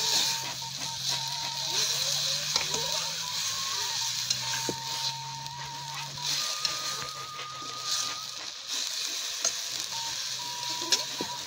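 Genjer (yellow velvetleaf) stir-frying in a wok: a steady sizzle, with the metal spatula scraping the pan and knocking against it a few times.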